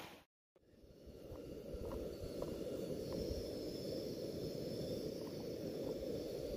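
After a brief dropout, a steady low rumble of wind on the microphone, with a few faint light clicks as a Trangia cook pot and lid are handled.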